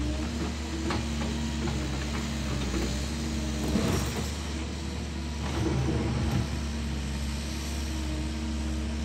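Caterpillar excavator's diesel engine running steadily as it works, with a few knocks and cracks of wood and brush being handled, the loudest about four seconds in.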